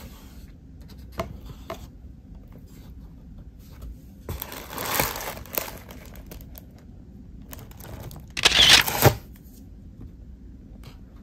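Paper and cardboard takeout packaging being handled: a couple of light taps, then two bursts of paper crinkling and rustling. The second burst, near the end, is short and the loudest.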